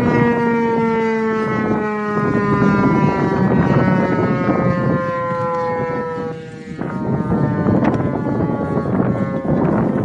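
Outdoor tornado warning siren wailing, a steady multi-tone howl whose pitch sinks slowly, weakening briefly about two-thirds through before carrying on fainter. Wind rumbles on the microphone underneath.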